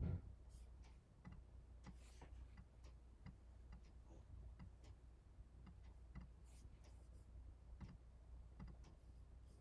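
Faint, irregular clicks from a computer being operated by hand, over a low steady hum; the first click, right at the start, is the loudest.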